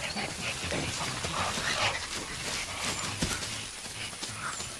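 A group of mountain gorillas among dense plants: rustling and the odd sharp snap of stems, with short animal calls scattered through.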